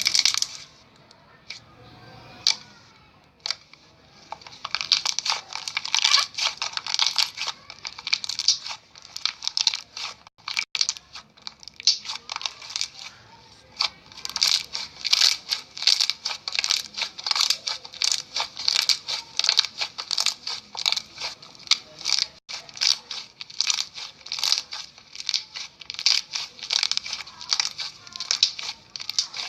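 Slime being squeezed and pressed by hand, giving rapid crackling, popping clicks several times a second after a quieter first few seconds.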